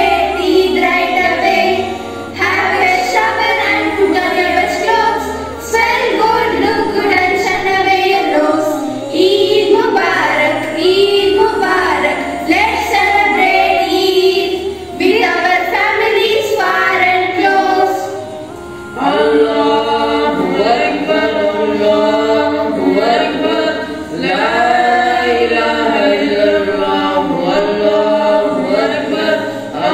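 A group of young voices, girls' voices prominent, singing a song together with little or no instrumental backing, in phrases broken by short pauses.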